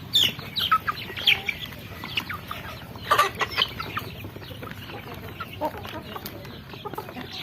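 Chicks peeping: many short, high calls, each falling in pitch, overlapping in a busy burst about three seconds in and thinning out to scattered peeps in the second half.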